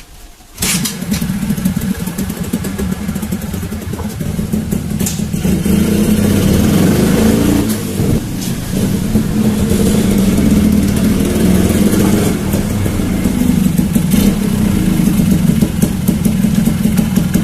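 Two-stroke motorcycle engine running under way, its pitch rising and falling with the throttle as the bike is ridden. The sound comes in about half a second in and grows louder a few seconds later.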